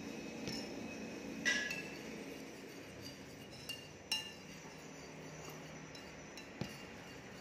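A metal spoon clinking against a china plate while stirring sauce on it: a few separate ringing clinks, the loudest about a second and a half in and softer ones later.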